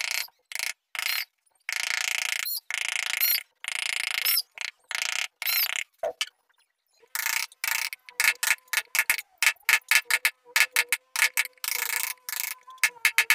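Wood-carving chisel cutting into a wooden door panel: scraping paring strokes about once a second at first, then, after a brief pause, quick light mallet taps on the chisel several times a second.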